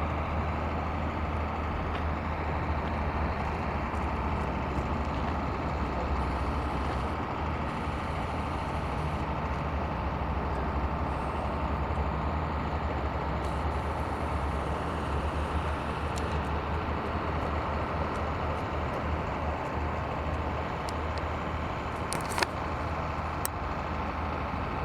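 Radio-controlled Yak 55M aerobatic model plane's motor droning steadily in flight, with a steady low rumble underneath. A single sharp click about 22 seconds in.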